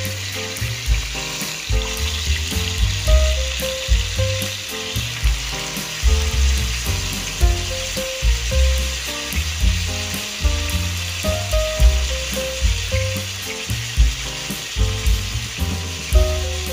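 Tilapia fish heads and steaks frying in hot oil in a non-stick pan, a steady crackling sizzle.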